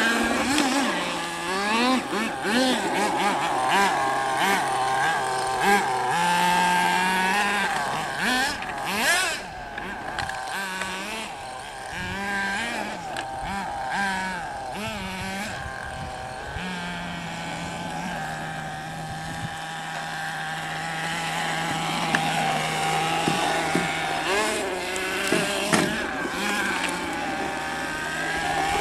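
Small engines of radio-controlled monster trucks revving up and down over and over as they drive. From about 17 s a steadier, lower drone runs under the revving.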